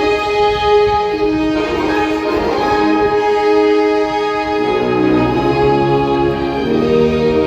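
Orchestral string music led by violins, playing held notes in a slow melody, with lower strings coming in about five seconds in.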